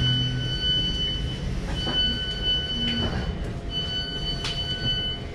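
Suburban electric train slowing into a station, with a low running rumble under a high, steady squeal. The squeal sounds three times, each about a second and a half long, with short breaks between, and there are a few light clicks.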